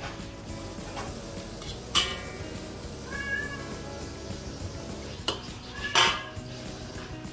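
Metal slotted spatula scraping and clanking against an aluminium wok while stirring noodles in broth. There are sharp clanks about two seconds in and twice near the end, the loudest about six seconds in. About three seconds in there is a short high squeal.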